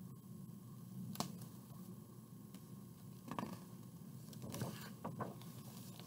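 A few short rustles and taps of a large picture book's paper page being handled and turned, mostly between about three and five seconds in.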